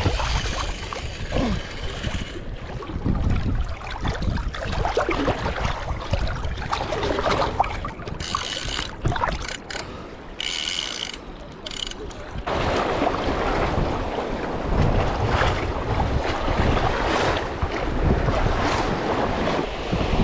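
Seawater sloshing and splashing around a camera held at the surface, with wind buffeting the microphone, louder and rougher in the second half.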